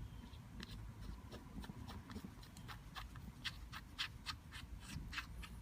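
Faint, irregular light clicks and ticks of small metal regulator parts being handled as the two halves of the regulator body are threaded together by hand.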